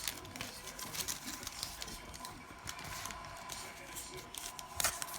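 Trading cards handled and flipped through by hand: a string of light clicks and rustles as the stiff cards slide and snap past one another, with a sharper click near the end.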